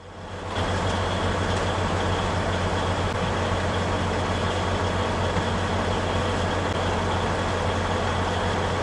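Heavy diesel truck engine idling, heard from inside the cab: a steady low hum.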